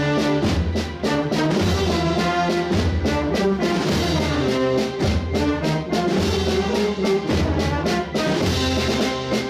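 Holy Week procession band playing a processional march: brass carrying the tune over a low bass line, with steady drum strokes.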